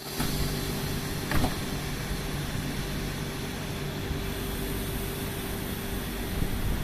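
Z 20500 double-deck electric multiple unit standing at the platform, its equipment humming steadily with a held tone. A single knock about a second and a half in as its doors shut before departure.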